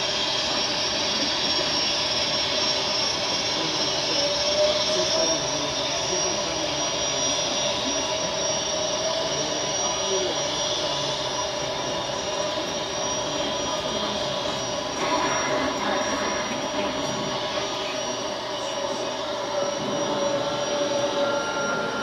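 Model railroad freight train of refrigerator cars rolling past: a steady rolling noise of wheels on the track, with a thin steady whine over it.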